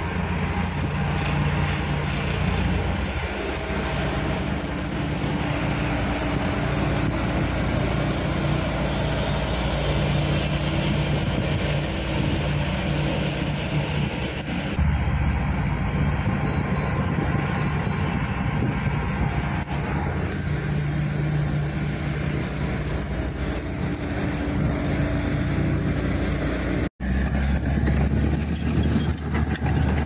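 Dump truck's diesel engine running steadily while its tipper bed is hoisted to unload sand. The sound cuts out for a moment near the end.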